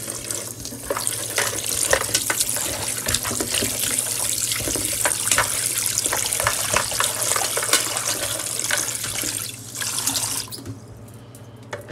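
Kitchen faucet running into the sink, the stream splashing over raw pork ribs in a container as they are rinsed. The water shuts off about ten and a half seconds in.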